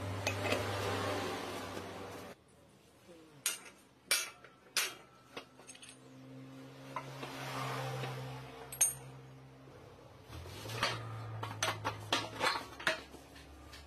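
Metal engine parts and hand tools clinking and knocking together, in scattered sharp strikes with a dense run near the end. A steady rushing noise in the first two seconds stops abruptly.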